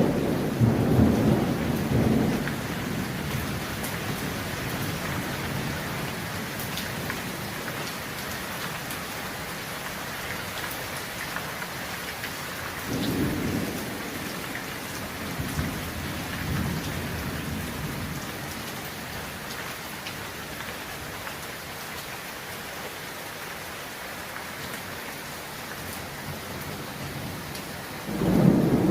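Heavy rain falling steadily, with rolls of thunder: one in the first couple of seconds, another about halfway through, and a third starting near the end.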